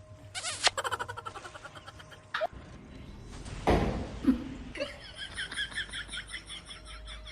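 A person laughing in quick, repeated bursts, with a short thump about halfway through.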